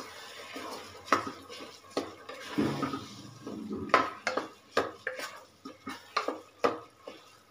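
A spatula stirring and scraping soaked rice and tomato masala around a pressure cooker, knocking against the pot's sides. In the second half the knocks come as sharp taps about twice a second.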